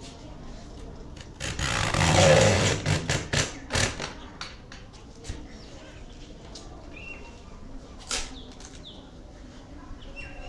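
PoCo PC 400 hand-lever tender coconut cutting machine: the lever blade is pulled through a green coconut's husk in one loud cut lasting about a second and a half. Several sharp knocks of the blade and lever follow, with a few fainter clicks later.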